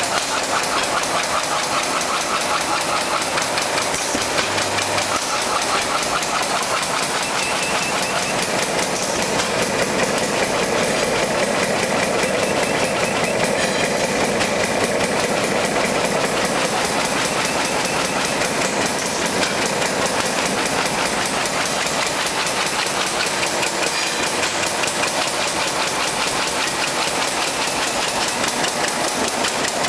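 High-speed side-sealing plastic bag-making machine running at about 300 bags a minute: a steady, fast, even mechanical clatter over a hiss.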